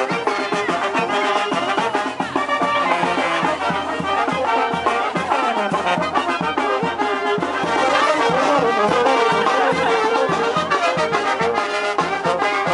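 Live brass band of an Oaxacan calenda procession playing, with trumpets and trombones over a steady beat.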